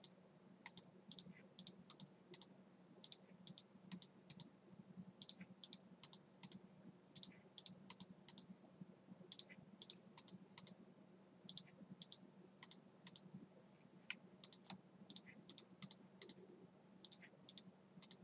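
Computer mouse clicking in quick irregular runs, often in pairs, about two to three clicks a second: left and right clicks placing and finishing lines in CAD software. A faint steady hum runs underneath.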